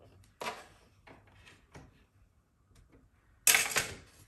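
Hands working at a sewing machine while changing its needle: a sharp click about half a second in and a few light ticks, then two loud bursts of noise near the end, each under a second.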